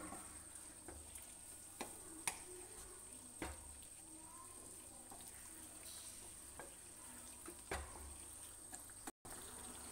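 Spatula stirring a thick chicken curry in a non-stick kadai pan, with a few light knocks of the spatula against the pan over a faint steady sizzle of the simmering gravy.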